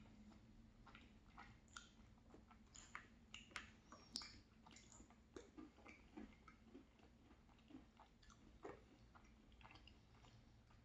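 Faint close-up chewing and wet mouth sounds of someone eating ice cream with crumbled almond raspberry tart, with scattered small clicks and smacks.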